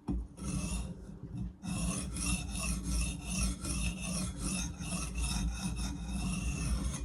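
Steel blade being stroked back and forth across a sharpening stone, a rasping scrape in quick repeated strokes, with a short pause about a second in and an abrupt stop near the end.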